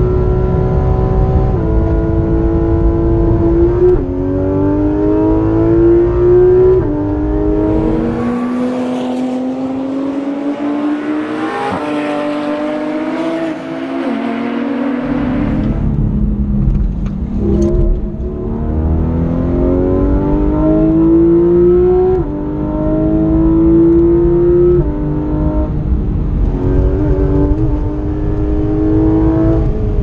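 Porsche 911 GT3 RS's 4.0-litre naturally aspirated flat-six heard from inside the cabin under hard track driving. The engine note climbs with the revs and drops sharply at each quick PDK upshift, several times over. In the middle it sits lower for several seconds before climbing through the gears again.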